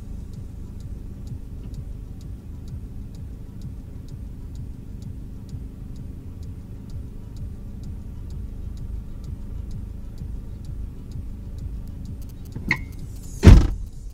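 Volvo V40 running at a standstill, with a light regular ticking about three times a second. Near the end a sharp click, then the bonnet is slammed shut with a loud thump.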